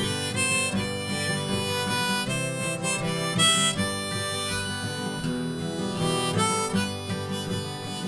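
Harmonica played from a neck rack, carrying the melody in an instrumental passage over two strummed acoustic guitars.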